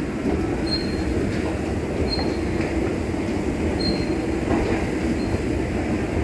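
Escalator running: a steady mechanical rumble, with a short high squeak repeating about every second and a half.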